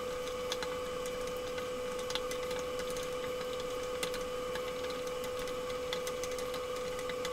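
A steady mid-pitched electrical hum from the electric cooktop, with faint scrapes and ticks of a wooden spatula stirring caramelising sugar in a stainless steel pot.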